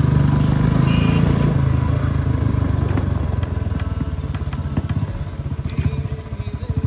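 Royal Enfield Bullet 350's single-cylinder engine running loudly through a loud aftermarket silencer as the bike rides. It is strongest in the first couple of seconds, then eases off a little.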